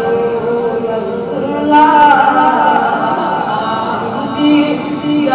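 A boy singing a Kashmiri naat, drawing out long held notes that waver and slide between pitches.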